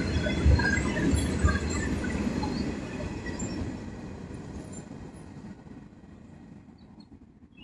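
Freight train gondola cars rolling past on steel rails, wheels thumping over rail joints with scattered short squeaks and clinks. The sound fades away as the last cars go by.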